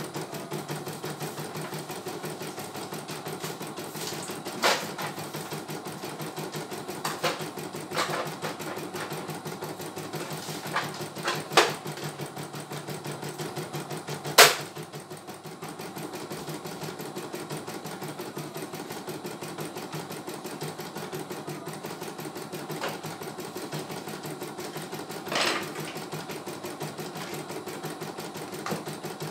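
CNY E900 computerized embroidery machine stitching a design, a rapid, steady needle rhythm. A few sharp clicks stand out, the loudest about halfway through.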